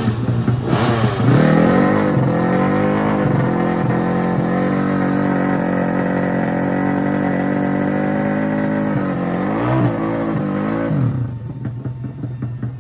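Drag-racing motorcycle engine revved with quick blips, then held at a steady high pitch for several seconds. Near the end it dips and rises a couple of times, then drops back to a lower, quieter run about eleven seconds in.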